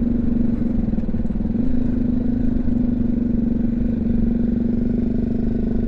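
BMW G310GS single-cylinder engine running at steady revs while riding, with a dense low wind rumble over the helmet microphone.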